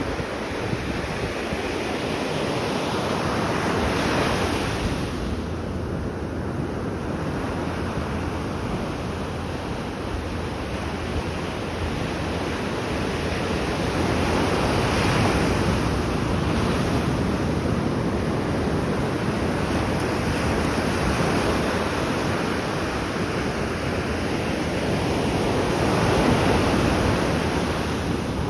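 Atlantic Ocean surf: a steady wash of waves that swells up three times as waves break, with wind on the microphone.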